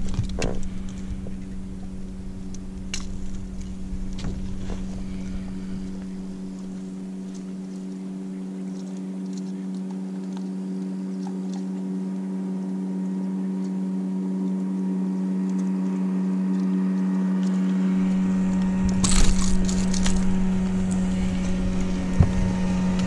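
Yamaha 25 hp two-stroke outboard motor running steadily, an even hum. A cluster of sharp clicks and clatters comes near the end.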